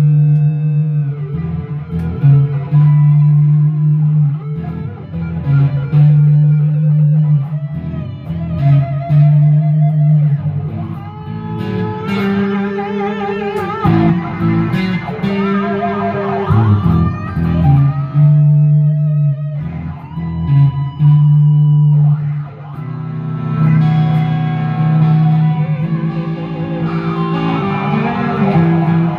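Two amplified electric guitars playing together: one holds down a steady low rhythm part while the other plays higher lead lines with wavering, vibrato-bent notes.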